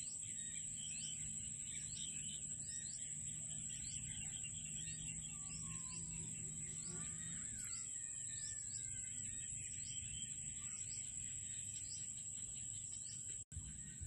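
Dusk chorus over a rice paddy: a steady high-pitched insect drone, with a short chirp repeating a little faster than once a second and a few bird calls in the middle, over a low hum. The sound cuts out for an instant near the end.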